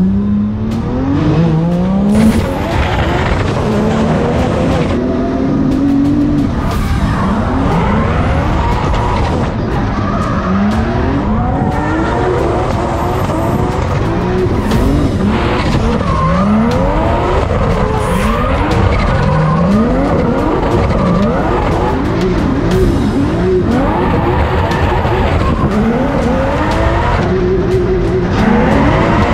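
A 1JZ-swapped 700 hp Mazda RX-7 drift car heard from inside the cabin, its engine revving up and falling back again and again as the throttle is worked through a drift. Tyres squeal and skid underneath.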